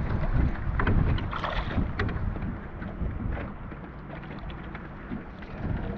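Wind rumbling on the microphone over open water from a small boat, with a few brief knocks in the first half.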